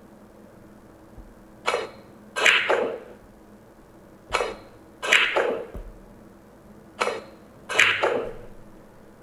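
Pool sound effect, repeated three times: a short crack of a cue striking the cue ball, then a louder clatter of balls knocking together. Each strike-and-clatter pair comes about three seconds after the last.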